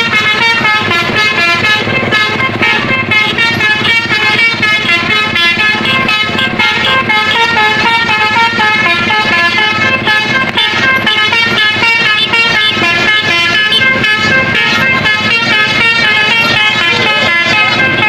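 Tour bus basuri telolet horns playing a fast, unbroken melody of short stepped notes, a horn 'battle' between buses in a convoy.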